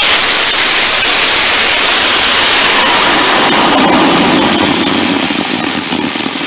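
Homemade solid/hybrid rocket motor firing: a loud, steady rushing noise of the exhaust jet. A lower rumble joins about three and a half seconds in, and the noise eases slightly near the end.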